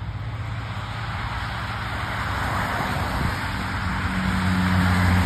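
A car approaching on a wet road, its tyres hissing on the wet pavement and growing louder, with a low engine hum that strengthens as it nears.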